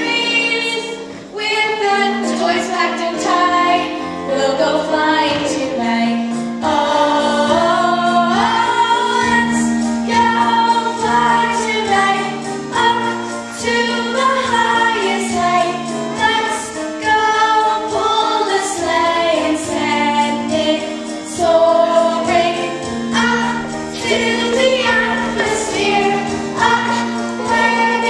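A group of young girls singing a song together in unison, over instrumental accompaniment with a steady bass line.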